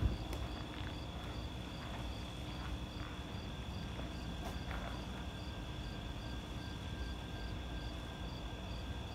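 Crickets chirping: a steady high trill with a second chirp repeating evenly about two and a half times a second, over a faint low rumble.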